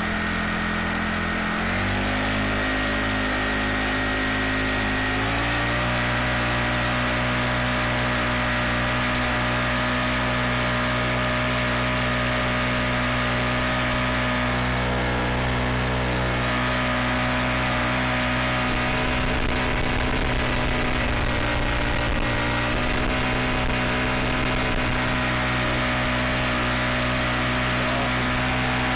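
Honda 35cc four-stroke engine driving a kayak's propeller, revving up in two steps about two and five seconds in, then running steadily at speed. Heard close up, right in front of the engine.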